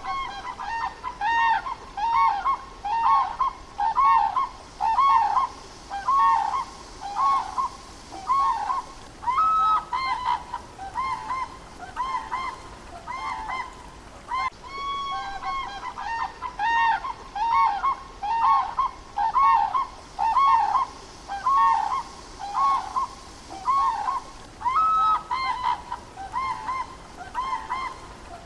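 Animal calls: a rapid series of short, honking, goose-like calls, a few each second. The same run of calls repeats from about halfway through.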